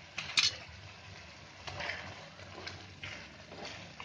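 Thick tomato pizza sauce simmering in an iron pan, with scattered soft pops and crackles. A brief sharp sound comes about half a second in, and a spatula stirs the sauce near the end.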